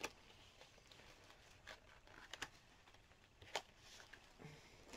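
Near silence with a few faint, short clicks and taps, the loudest about three and a half seconds in: makeup palettes and packaging being handled and put away.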